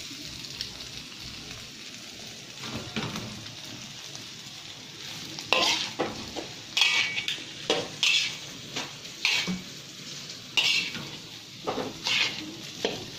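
Fried rice sizzling in a metal wok. From about five seconds in, a metal spatula scrapes and knocks against the pan as the rice is stir-fried, in strokes about once a second.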